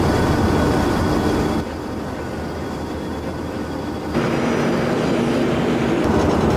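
Asphalt paver at work: its diesel engine and auger and conveyor machinery running in a steady, noisy mechanical rumble. The sound drops in level about a second and a half in and comes back louder about four seconds in, now with a steady low engine hum.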